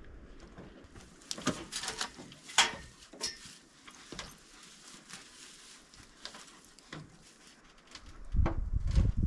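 Irregular sharp knocks and scuffs of boots on wooden roof rafters as a man climbs a barn's roof frame, clustered in the first few seconds with one more later on. A low rumble comes in near the end.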